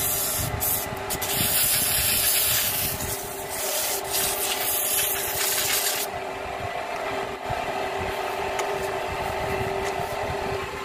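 Sandpaper held against a wooden workpiece spinning on a lathe, a loud rubbing hiss in several passes with short breaks, stopping about six seconds in. The lathe runs on with a steady hum throughout.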